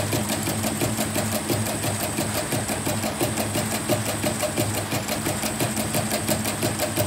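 CNY E900 portable embroidery machine stitching a test design, its needle bar running in a fast, even clatter of rapid clicks. This is a test run after repair, with the machine freshly oiled and its running sound described as smooth and calm ('udah adem').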